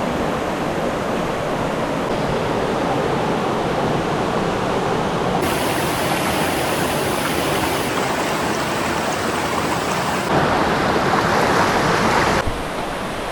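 Steady rush of river water and waterfalls. The sound changes abruptly about five seconds in, again about ten seconds in and near the end, as from one stretch of water to another.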